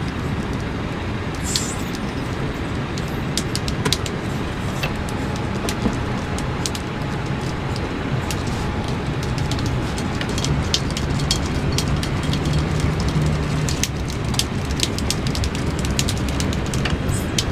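Steady rush of ocean surf and wind, with many small sharp ticks and crackles scattered through it.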